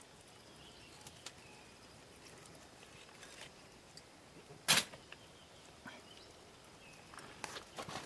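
Quiet outdoor background with a few faint ticks and faint high chirps, broken once, nearly five seconds in, by a single short, sharp noise from handling the food and knife.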